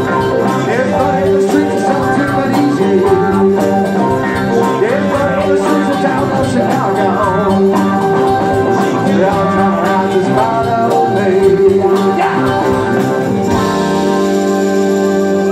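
A rock band plays live: an electric guitar lead with bending notes over bass, drums and keyboards. Near the end the band drops out, leaving a sustained electric organ chord.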